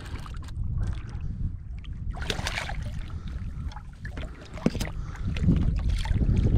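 Water splashing as a hooked ray is hauled up and thrashes at the surface beside a kayak. The splashing is loudest about two seconds in and again near the end, over a steady low rumble.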